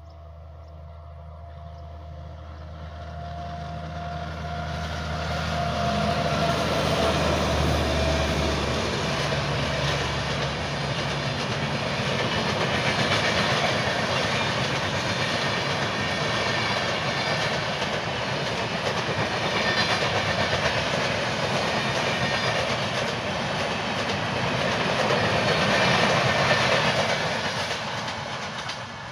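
A WAG-9 electric locomotive hauling a long passenger train approaches at about 90 km/h and passes close by. Its low hum grows over the first several seconds, then the loud, steady rush of the coaches running past carries on, easing off slightly near the end.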